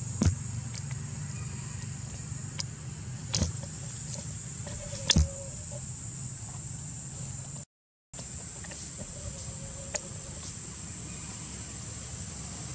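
Outdoor ambience of a steady high-pitched insect drone over a low steady rumble, broken by a few sharp clicks. The sound cuts out for a split second about eight seconds in.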